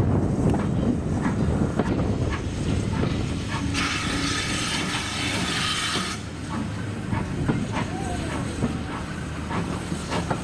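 A steam-hauled train of coaches running behind GWR 5101 Class tank locomotive No. 5199, heard from a carriage window: a steady rolling rumble with wheels clicking over rail joints and points. About four seconds in, a steady hiss of steam from the locomotive starts abruptly and runs for about two seconds.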